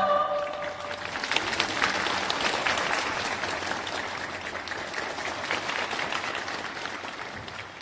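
Audience applauding after a vocal ensemble's song: the last sung chord dies away at the start, then clapping builds within about a second and slowly fades out.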